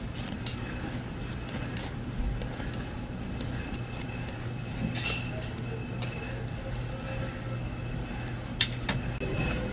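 Light clicks and clinks of metal utensils at a hotteok griddle over a steady low hum, with two sharper clicks near the end.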